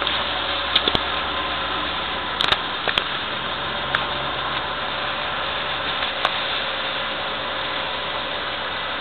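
Cabin noise of a 1998 Mini Cooper running at speed on a wet track: a steady engine drone under a loud hiss of tyres on wet tarmac, with a scattering of short sharp clicks.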